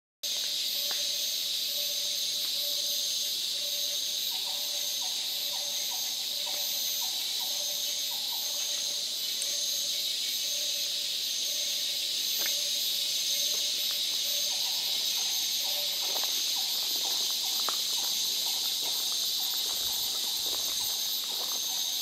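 Daytime tropical rainforest insect chorus: a steady high-pitched buzzing drone with a pulsing call repeating more than once a second above it and a low pulsing hum beneath. Twice, a rapid run of quick mid-pitched notes, a bird or frog. Footsteps on the forest path in the last few seconds.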